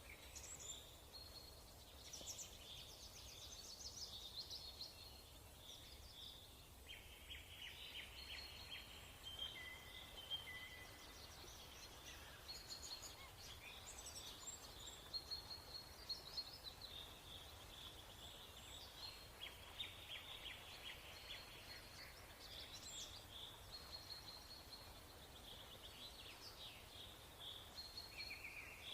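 Faint birds chirping and trilling over a steady low hum.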